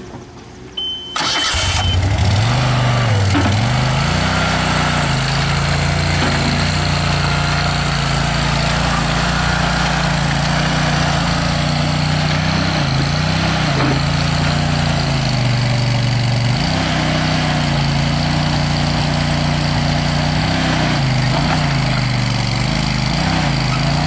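A mini skid steer's Kohler Command Pro 27 hp V-twin gas engine starting on its electric starter after a brief high beep. It catches about a second in, then runs loudly and steadily, its pitch dipping briefly and recovering a few times.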